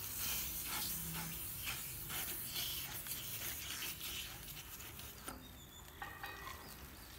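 Irregular scraping and rubbing as a threaded pipe fitting on a water pump is twisted by hand, with short clicks along the way; it quiets down about five seconds in.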